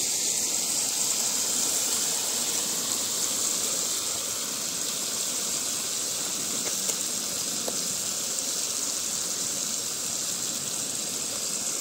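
A pan of oyster and potato curry simmering over a gas stove: a steady hiss of bubbling liquid and burner flame, with a few faint crackles.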